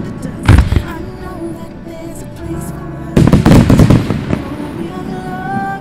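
Aerial firework shells bursting over music: a sharp double bang about half a second in, then a rapid cluster of loud bangs around three to four seconds in.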